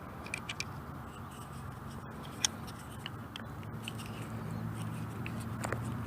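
Scattered small clicks and scrapes of a Magpul 9mm Glock magazine being worked by hand to free rounds jammed in it, with one sharper click a little over two seconds in, over a faint steady low hum.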